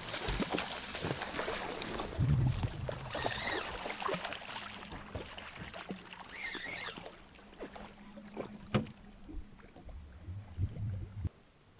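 Knocks, clicks and rustling of tackle being handled in a small fishing boat, over a faint steady low hum. The sounds thin out and quieten in the second half.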